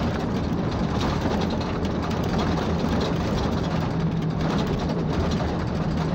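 Steady engine hum and road noise of a moving vehicle cruising along a paved road, with an even, unchanging drone.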